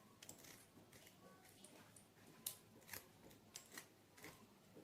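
Near silence with a few faint, irregular clicks and rustles, as of objects being handled.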